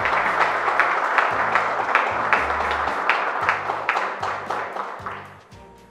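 Audience applauding, dying away near the end, over steady background music.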